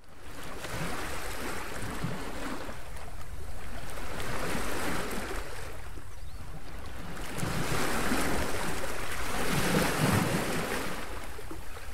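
Ocean surf: waves washing in and drawing back in slow swells a few seconds apart.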